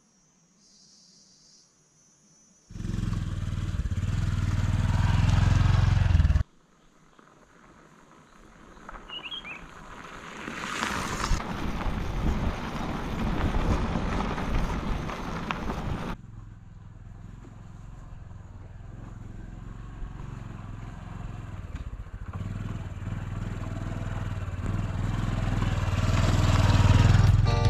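Small motorcycle engine running on a dirt track, heard in several cut clips. After a near-silent start, a loud engine rumble plays for about four seconds and cuts off suddenly. Then comes a rising noisy stretch, and a steady engine rumble that grows louder near the end.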